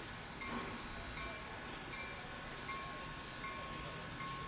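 Steam locomotive standing with steam hissing steadily from around its cylinders over a low rumble, with a faint steady high tone.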